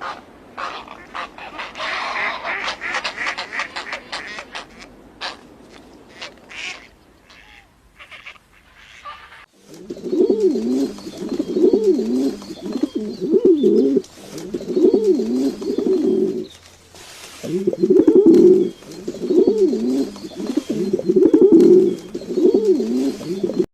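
Pigeons cooing: repeated low, wavering coos in runs of phrases, starting about ten seconds in. Before that, rapid clicks and higher-pitched chatter.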